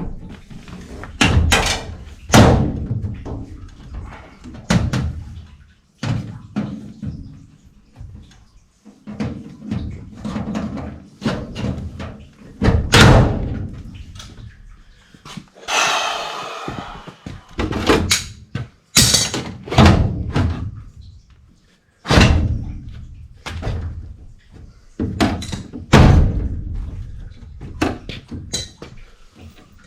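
Irregular series of heavy thumps and knocks on sheet metal as the coil cabinet and plenum flanges are worked and bent into place, with a brief scraping rasp about halfway through.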